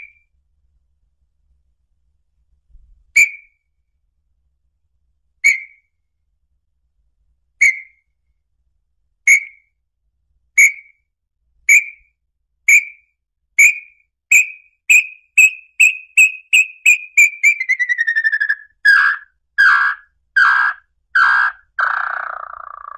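Small-billed tinamou (inambu, 'lambu pé vermelho') song: single whistled notes that start a couple of seconds apart and come ever faster, run into a falling trill, then end in a few louder, rougher notes and a last lower one.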